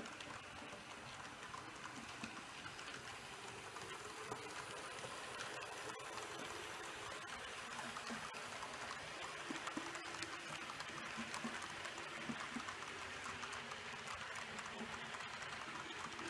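H0-scale model passenger train rolling past on its track: a steady rolling hiss from the coaches' wheels with scattered faint clicks, growing a little louder a few seconds in as the train comes closer.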